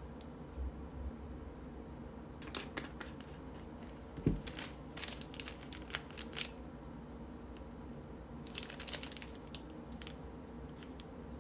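Handling sounds: a plastic retail bag crinkling in short bursts, with light clicks and ticks, and one soft thump of an item set down about four seconds in.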